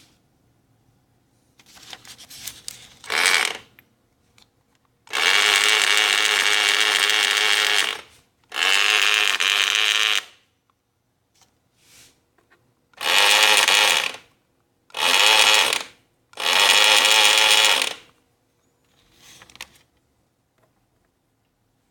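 Estrela sewing machine running in short spells, starting and stopping six times, each run lasting from under a second to about three seconds, with small handling noises in the quiet gaps.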